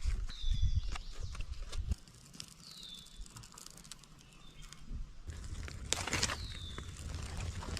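Dry birch bark rustling and crackling as it is handled and pushed down into a hollow log. A bird repeats a short, downward-sliding whistle about every three seconds.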